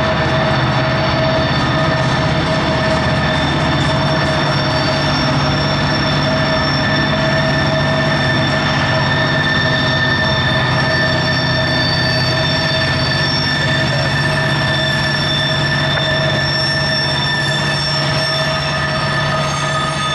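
Loaded freight train rolling through a tight curve: the wheels squeal against the rail in several steady high ringing tones over the low, even rumble of the cars and the mid-train diesel locomotives.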